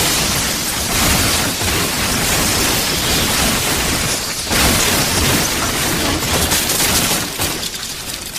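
Explosion-like sound effect: a long, dense, crackling blast that swells about a second in and again midway, then fades near the end.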